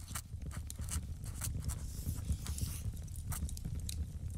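Intro sound effect of irregular crackles and crunches over a steady low rumble.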